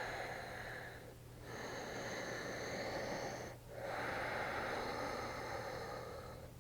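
A woman's slow, deep yoga breathing, audible and airy: three long breaths of about two seconds each, with short pauses between them.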